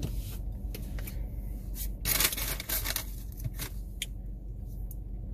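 Handling noises from picking up food packaging and a plastic cup: a few light clicks and knocks, with a louder rustling scrape about two seconds in, over a steady low hum.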